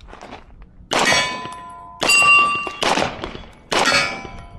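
Pistol shots striking steel plate targets about a second apart, each hit leaving a metallic clang that rings out for most of a second: a timed run on steel.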